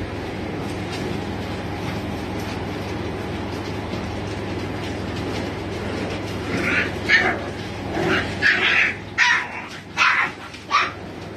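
American Bully puppies yelping: a quick run of about seven short, high yelps and barks starting about six and a half seconds in, over a steady background rumble.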